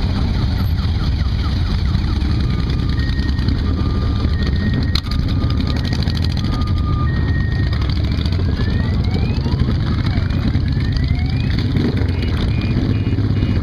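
A group of cruiser motorcycles riding slowly past in a column, their engines rumbling at low revs. Some bikes rev up in the second half, their note rising. A faint two-note tone alternates in the middle.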